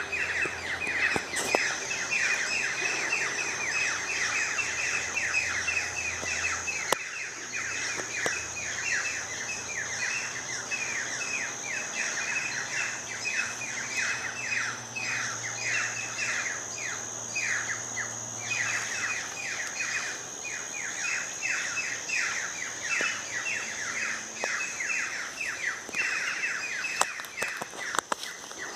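Birds calling: a continuous stream of quick downward-sweeping notes, about four a second, over a steady high-pitched whine.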